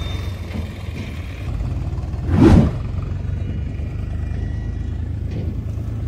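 Diesel tractor engine running steadily with a low, even throb as the tractor pulls its trolley away. About halfway through, a brief loud whoosh swells and dies away over the engine.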